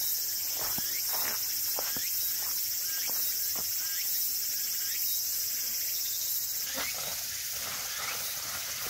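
Summer insect chorus in the woods: a steady, dense high-pitched drone. A string of short sharp sounds about twice a second runs over it through the first few seconds and again near the end.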